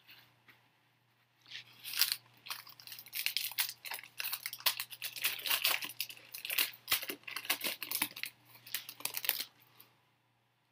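Trading-card pack wrapper being torn open and crinkled, a dense run of crackling from about a second and a half in until near the end.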